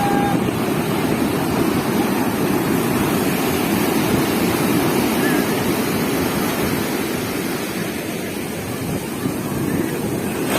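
Ocean surf washing on a sandy beach: a steady rush of waves, with some wind buffeting the microphone.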